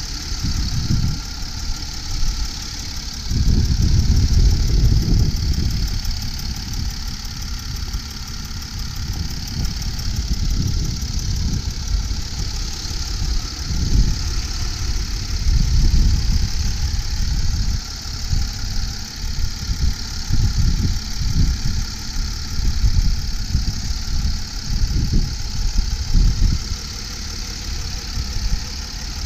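2007 Mercedes-Benz ML320 CDI's 3.0-litre V6 turbo diesel idling smoothly, a steady hiss over an uneven low rumble.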